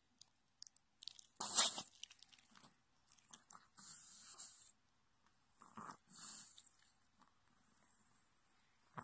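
Long-haired Chihuahua making breathy noises: a short loud snort about a second and a half in, then several hissing breaths.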